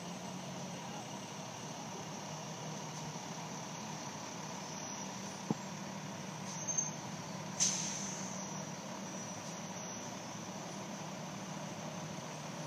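A convoy of fire crew trucks and crew buggies rolling slowly past, their engines giving a steady low hum. A click and then a short sharp sound come a little past the middle.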